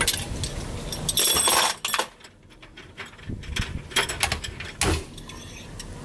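Metal clinks and clatter of valve springs and retainers being compressed and pulled off a KIA L6 engine's cylinder head with a lever-type valve spring compressor. A loud clatter comes about a second in, then a run of lighter clinks and another sharp one near the end.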